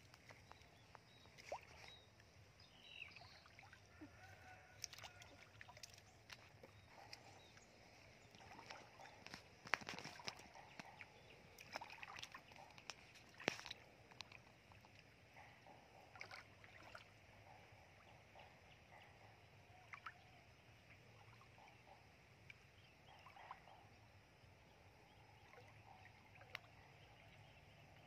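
Faint, scattered splashes and sloshes of bare feet wading through shallow muddy water, loudest around the middle.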